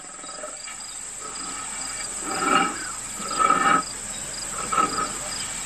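Insects chirping in a steady, evenly repeating high pulse, the savanna ambience under the scene. Three louder short sounds stand out about two and a half, three and a half and five seconds in.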